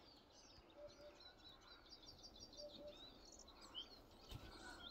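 Faint birdsong: many small birds chirping in quick high notes over a quiet background, with a short low two-note sound twice.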